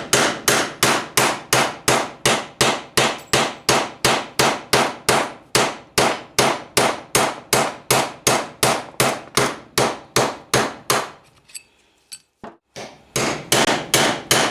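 Hammer striking a steel punch on the primary driven gear of a Yamaha Banshee clutch basket, about three metal-on-metal blows a second, driving a ground-off rivet out of the gear's plate. The blows stop for a moment near the end, then start again.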